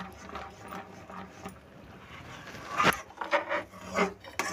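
Metal spoon stirring and scraping thick, frothy jaggery syrup in a steel pan, with a sharp knock of the spoon on the pan about three seconds in and a few lighter clinks after it. The syrup is cooked far enough to turn pale and is nearly at setting point for chikki.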